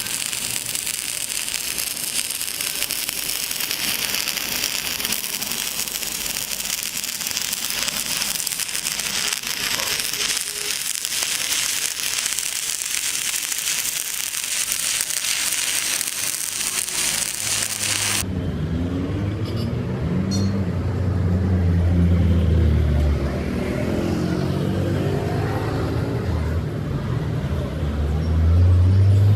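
Steady, dense crackling hiss of an electric welding arc for about eighteen seconds, then an abrupt cut to a low, wavering hum.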